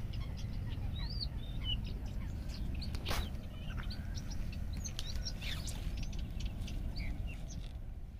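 Small birds chirping in many short, scattered calls over a steady low wind rumble on the microphone, with one brief sharp noise about three seconds in.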